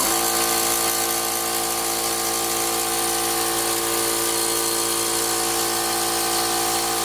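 XtremepowerUS 3.5 HP oil-lubricated electric air compressor switching on and running steadily, fairly loud, pumping up its 10-gallon tank. It gives an even, pitched machine hum with a hiss above it.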